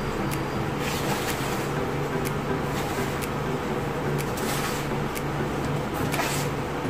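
Hands rubbing and scraping a gritty sand-and-cement mix in an aluminium tray, in short bursts with small clicks of grit against the metal, over a steady background hum.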